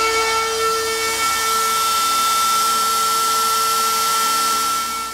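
X-Carve CNC router spindle running with a steady whine while its bit carves into a wooden block; the cutting hiss grows about a second in. The sound cuts off near the end.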